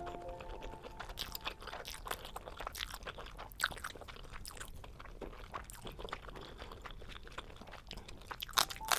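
A person eating close to the microphone: chewing and biting, with many quick, irregular crunchy and sticky mouth clicks.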